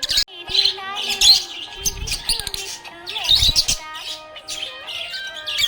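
Budgerigar chirping and warbling: a rapid run of short, varied high chirps and whistles.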